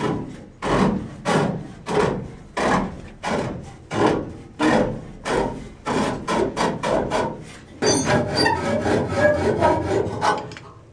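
Rhythmic rasping strokes of a hand tool worked back and forth on rusty sheet metal, about one and a half strokes a second. About eight seconds in, the strokes turn faster and more irregular.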